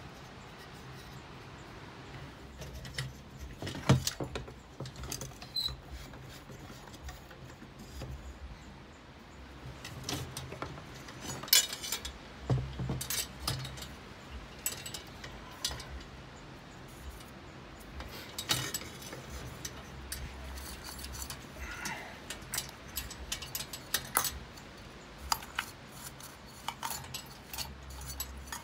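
Scattered clinks, taps and light rattles of a brass-framed chandelier's metal fittings and glass panels being handled, with the sharpest knocks about four seconds in and near twelve seconds.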